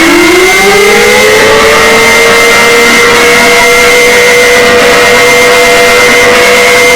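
Mock emergency alert alarm played extremely loud and distorted: a siren tone glides upward over the first three seconds, then holds steady, over a constant higher tone and a harsh wash of static-like noise.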